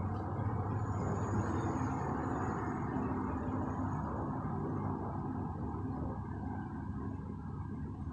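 Steady hum of road traffic, with a continuous low drone and no distinct events.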